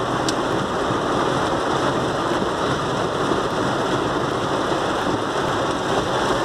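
Heavy rain falling on a car's roof and windscreen, a steady dense noise heard from inside the cabin.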